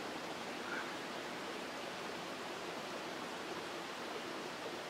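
Steady rush of flowing water, an even hiss with no distinct splashes.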